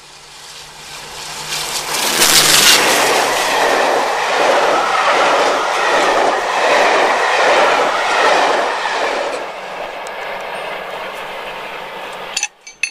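Class 52 'Western' diesel-hydraulic locomotive with twin Maybach engines working hard up a bank. It comes close and passes, loudest a couple of seconds in. The coaches follow with a rhythmic clatter of wheels over the rail joints, fading as the train draws away, with a few sharp clicks near the end.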